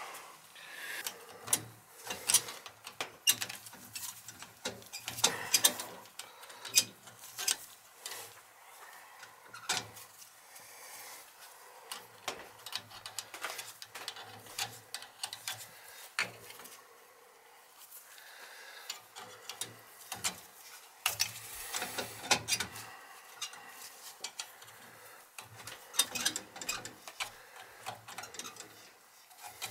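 Irregular small clicks, taps and scrapes from hands working the aluminum pilot tubing and fittings on a boiler's gas valve.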